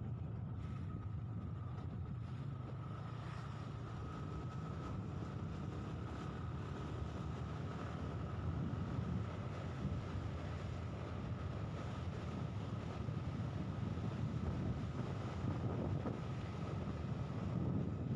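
Wind buffeting the microphone in a steady low rumble, with a faint steady whine above it.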